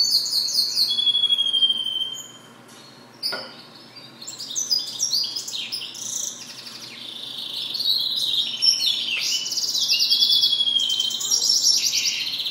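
Goldfinch mule (goldfinch × canary hybrid) singing: fast twittering phrases and buzzy trills, with a short lull and a single sharp click about three seconds in before the song resumes almost without a break.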